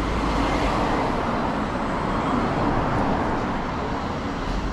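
City street traffic noise, with a vehicle passing whose noise swells and then fades.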